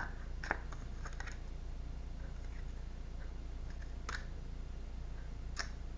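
A few short, sharp taps and clicks of tarot cards being handled and laid down, over a steady low hum.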